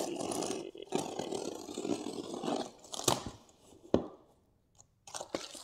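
Cardboard shipping box being cut open and pulled off: cardboard scraping and tearing for a couple of seconds, then a few sharp knocks.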